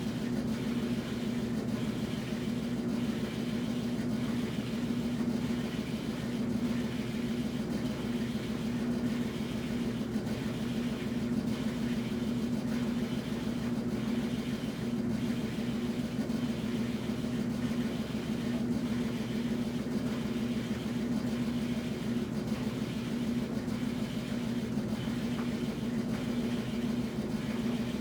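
Washing machine running with a steady low hum and a faint regular pulse about once a second.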